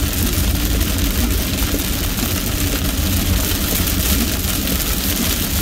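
Car cabin noise while driving through a heavy rainstorm: a steady low rumble of engine and road, under a constant hiss of rain and tyres on the wet road.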